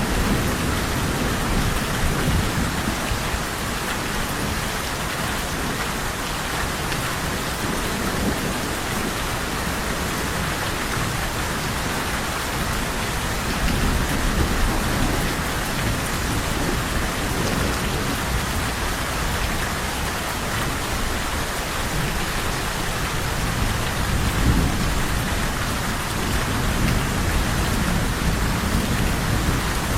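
Steady rain falling on surfaces, with low rumbles of thunder swelling a few times, the strongest about halfway through and again near the end.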